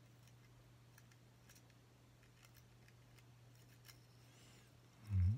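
Faint ticks and scrapes of a hex key being worked into a thin plastic RC helicopter canopy, over a steady low hum. A short, loud low sound comes near the end.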